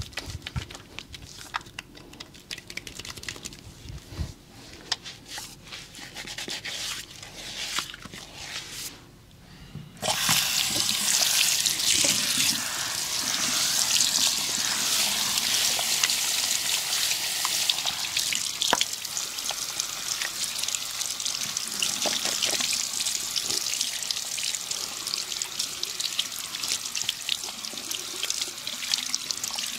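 Soft rubbing and scrubbing with small clicks, then about ten seconds in water starts running suddenly and keeps running steadily and loudly, as from a tap.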